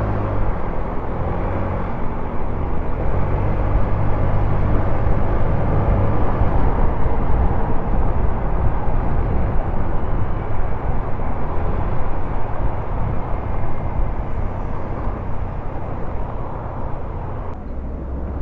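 Steady engine and road noise of a moving vehicle heard from on board: a continuous low hum under a rushing noise, with no breaks.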